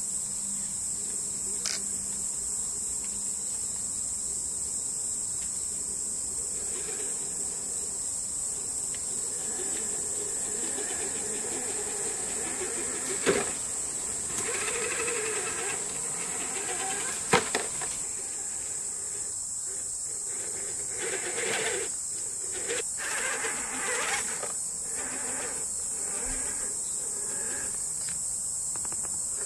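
Steady high-pitched buzzing of insects, over which a 1/10-scale Axial SCX10 III RC crawler works across rock: its electric motor whirs in short spells and its tyres scrape and knock on the stone, with two sharp knocks about halfway through and again some four seconds later.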